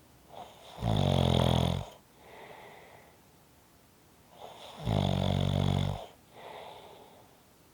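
A person snoring: two loud snores about four seconds apart, each lasting about a second and followed by a softer breath.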